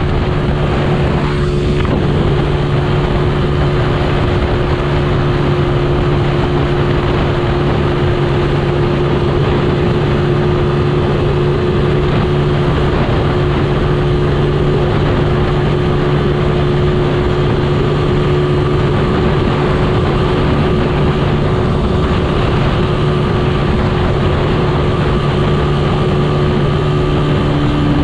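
Motorcycle engine running steadily at cruising speed, with wind and road noise. The engine note drops a little near the end.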